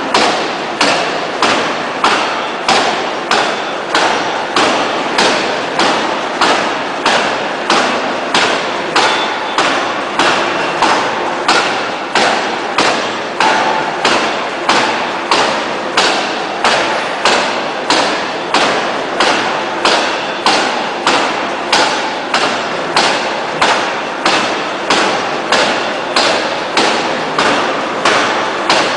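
Electro-hydraulic open-die forging hammer striking a red-hot steel shaft in a steady, rapid series of blows, about three every two seconds, each a sharp thud with a short ring.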